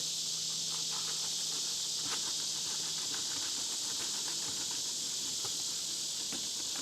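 Steady, high-pitched chorus of insects, with scattered faint taps and a faint low hum through the first half.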